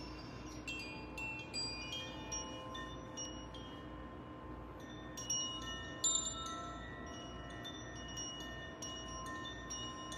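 Wind chimes ringing in scattered, overlapping high strikes over steady, lower held tones, with two louder strikes about five and six seconds in.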